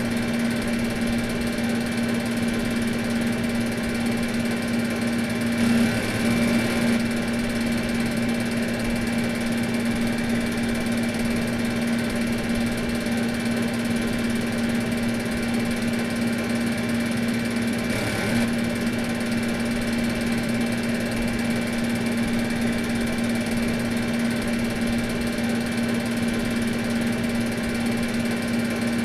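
Air conditioner motor running steadily: a constant low hum with fainter high-pitched whines above it. It swells briefly about six seconds in, and slightly again around eighteen seconds.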